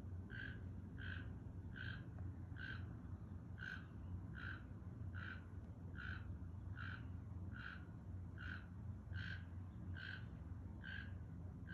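A toucan calling, one short call repeated steadily about every three-quarters of a second, over a low steady hum.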